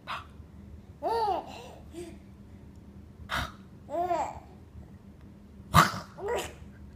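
A baby cooing in short rise-and-fall calls and giving breathy little laughs between them, with the loudest burst near the end.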